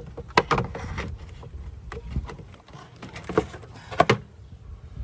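2010 Honda Civic Hybrid's plastic airbox cover being lifted and the old paper air filter pulled out of the housing. The plastic gives a run of clicks, knocks and rattles, loudest about half a second in and again around three and four seconds in.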